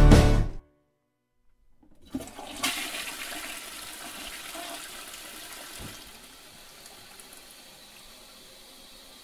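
The band music cuts off about half a second in; after a second and a half of silence a toilet flushes, a sudden rush of water that slowly dies away over several seconds.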